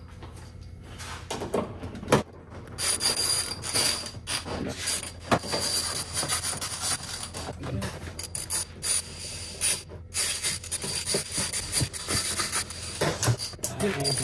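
Hand ratchet with a 10 mm socket clicking in rapid runs as it tightens the screws that hold a plastic frunk tub. The clicking starts a few seconds in.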